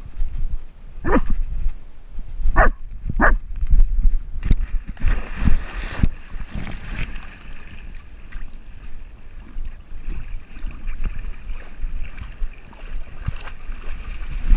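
A dog whining in three short bursts in the first few seconds, over steady bumping and rustling on a camera strapped to the dog as it moves through grass.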